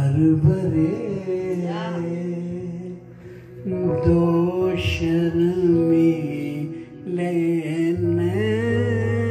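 A man singing into a microphone in long, wavering held notes, accompanied on an electronic keyboard; a steady low keyboard note comes in near the end.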